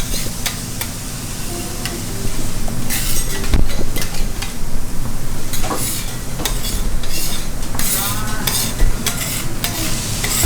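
Kobe beef sizzling as it cooks on a hot surface, a steady hiss broken by several sharp metal clicks and scrapes of cooking utensils.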